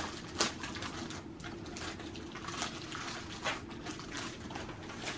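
Plastic wrapping crinkling and crackling as hands tug and peel it off a rolled diamond-painting canvas, in irregular rustles with a sharper crackle about half a second in.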